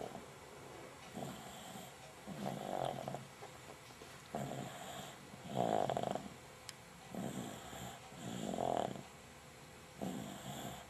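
Snoring in a steady rhythm, about seven snores, the loudest near the middle.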